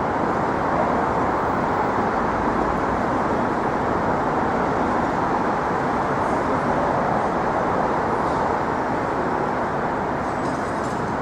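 Steady city street noise: a continuous roar of traffic with no distinct events.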